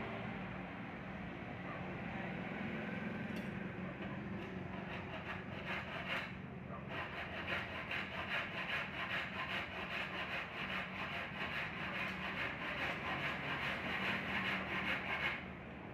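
Hand tool worked back and forth on wood in quick rasping strokes, about three a second, running steadily from about seven seconds in and stopping shortly before the end; before that, slower, uneven rubbing on the wood.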